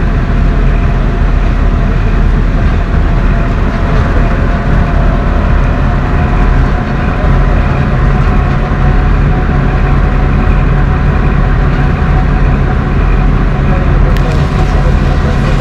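LAZ-42021 bus running along the road, heard from inside the passenger cabin: a loud, steady drone of engine and road noise. Its low hum grows stronger about seven seconds in.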